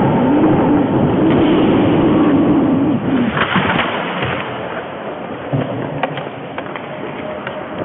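Ice hockey skates carving and scraping on the rink, heard close up from a helmet-mounted camera. A low wavering tone rises and falls through the first three seconds. A short, hissing scrape of blades on ice comes about three and a half seconds in, and a few sharp clacks of sticks or puck follow near the end.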